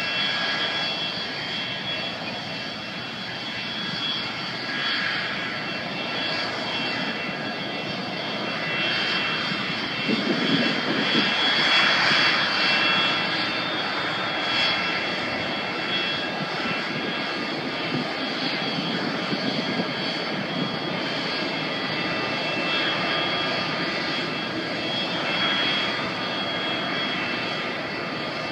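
A Boeing 727-227 Advanced's three Pratt & Whitney JT8D turbofans running as it taxis: a steady jet noise with a high whining tone, swelling louder about ten seconds in.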